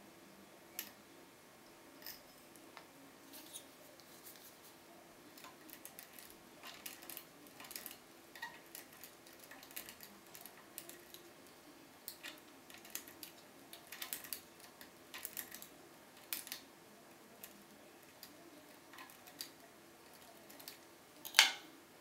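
Lock pick working in the keyway of a Keso 2000 euro cylinder: an irregular scatter of small metallic ticks and scrapes, with one sharper, louder click near the end.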